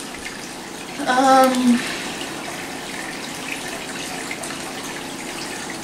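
Steady, even background hiss, with a short vocal sound from a person about a second in.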